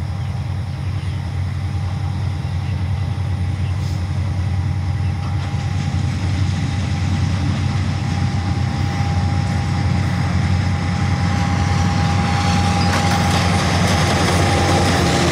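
Diesel locomotive hauling a freight train of oil tank wagons, approaching and coming alongside: a steady low engine drone with a steady whine above it, growing louder. Near the end the noise of wheels on rail joins in as the locomotive draws level.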